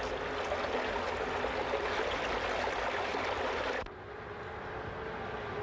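Steady rush of running water. About four seconds in it cuts off suddenly, leaving a quieter low rumble.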